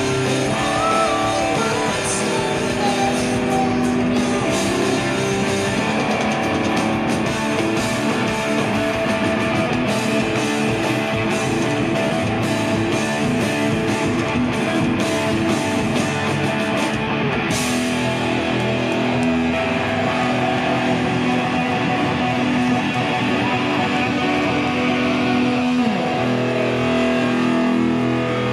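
Live rock band playing loud: electric guitar over drums and cymbals. About 26 s in, a note slides down in pitch before low notes are held.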